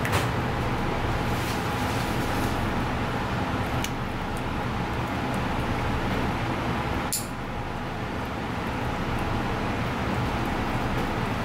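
Steady low background rumble with a hum, broken by a few light clicks.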